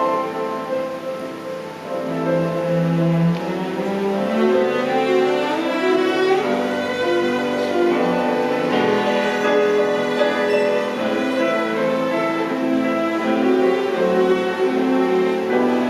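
A youth orchestra's strings playing live with two pianos: held bowed notes from violins and cellos, quieter briefly about two seconds in, then fuller and louder.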